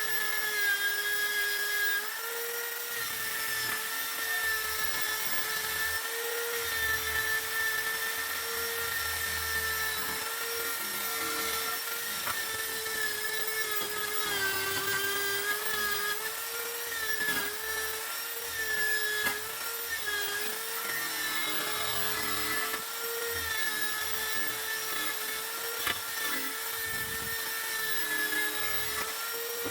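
A small high-speed power tool running continuously with a steady whine, its pitch dipping slightly now and then as it bears on the work.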